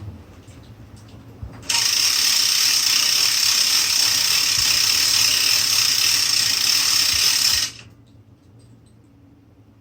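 Hand crane's winch mechanism running with a dense, rapid ratcheting clatter. It starts abruptly about two seconds in and stops suddenly about six seconds later.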